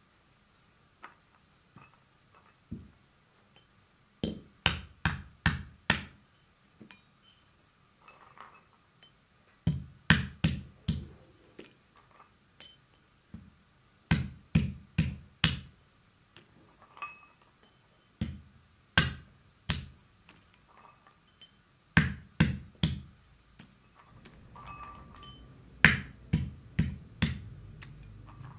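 Walnuts cracked with a pestle struck against the lid of a brass mortar: quick runs of three to five sharp knocks, six runs in all, with quieter clicking of shells being picked apart between them.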